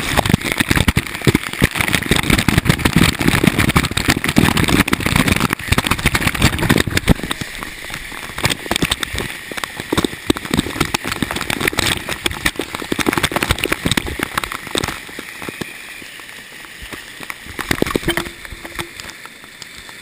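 Waterfall water pouring and spattering directly onto a GoPro camera housing, a loud rush full of small clicks. It eases off about midway and drops further near the end as the camera comes out of the falling water.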